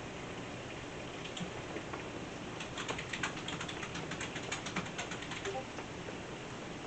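Steady hiss of rain, with a run of quick, light clicks and taps lasting about three seconds in the middle.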